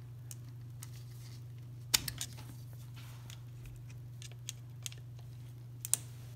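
A few small, sharp clicks and taps of a screwdriver prying plastic wiring-harness connectors off the fuel injectors of a VW TDI cylinder head, the loudest about two seconds in, over a steady low hum.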